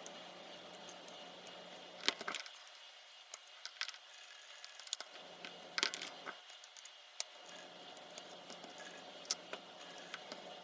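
Scattered light clicks and taps of small tools and parts being handled while a compact digital camera is taken apart, over a faint steady hum.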